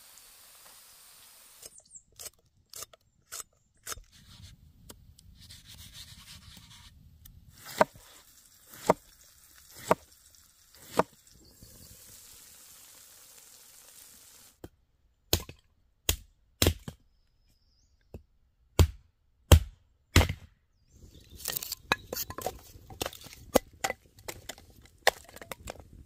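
Cooking sounds on a wooden board: a string of sharp knocks and taps, in two runs of loud strokes with stretches of soft hiss between, then a dense patter of small clicks and rustling near the end.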